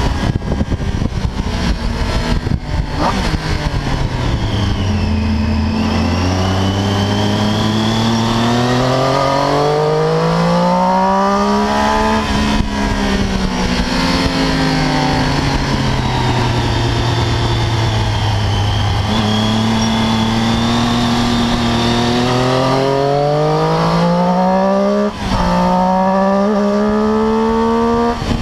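Triumph Daytona 675's three-cylinder engine at track speed, its note falling and rising again and again as the bike slows for and accelerates out of corners. Near the end the sound briefly breaks off before climbing again.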